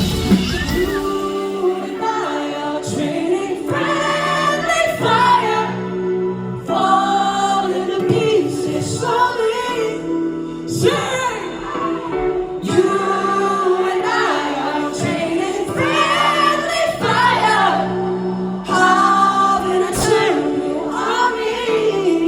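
Live pop song performance: sung vocals over sustained chords. The deep bass and drums drop out about a second in.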